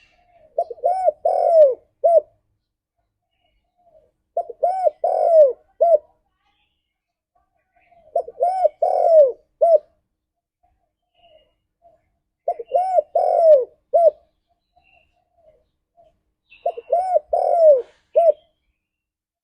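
Spotted dove singing: a phrase of several quick cooing notes ending in a separate final coo, repeated about every four seconds, five times.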